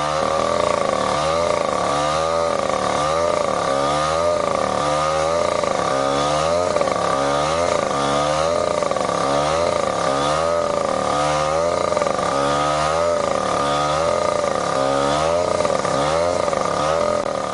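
Petrol-engined rail grinder running under load on the railhead, its engine note wavering about once a second as the stone is worked back and forth. Grinding like this finishes a fresh thermite weld flush with the rail.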